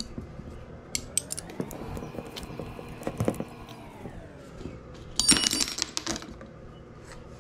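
Small metal parts, the chainring bolts, clicking against each other as they are handled. There are a few light clicks at first, then a burst of bright metallic jingling about five seconds in.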